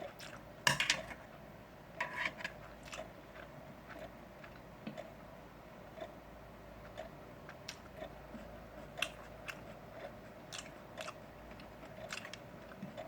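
A person chewing and biting grilled meat close to the microphone: irregular wet clicks and smacks, with louder bursts about a second in and again about two seconds in.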